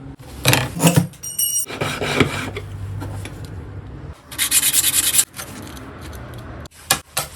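Hand-tool scraping and rubbing in irregular strokes, with a quick run of about eight short strokes some four and a half seconds in and a brief thin high ring a little after a second in.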